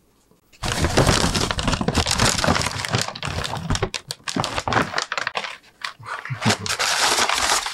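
Brown paper takeout bag and paper food wrapper crinkling and rustling as they are handled and opened. It starts about half a second in, with a few short pauses.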